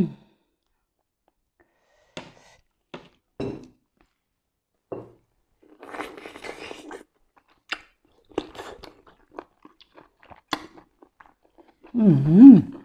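Close-up mouth sounds of chewing boiled octopus tentacle: scattered wet clicks and short crunchy bursts. Near the end comes a loud, wavering "mmm" hum of enjoyment.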